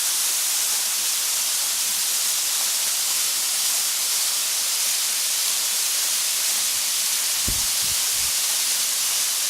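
Waterfall rushing, a steady hiss of falling water. A couple of brief low bumps come about three-quarters of the way through.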